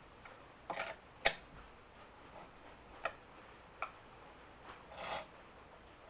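Sharp metallic clicks, five or six spread over several seconds, and a short scraping rustle near the end, from a tool working the bar nut on a Homelite XL chainsaw as it is tightened.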